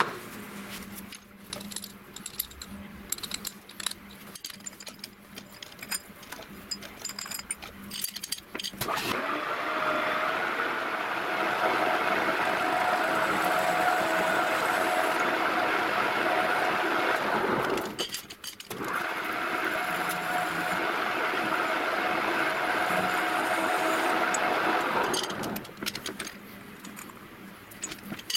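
Clicks and metal clatter from the lathe's toolpost and tool being handled. Then a type 1615 metal lathe runs while a grooving insert, used as a parting tool, cuts into a spinning metal tube, a steady whine with a hiss. The running sound drops out briefly about two thirds of the way in and gives way to clatter again near the end.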